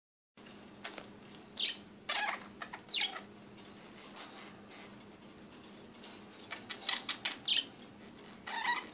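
Pet budgerigars chirping and chattering in short, high calls, in a cluster about two seconds in and another around seven seconds, over a faint steady hum.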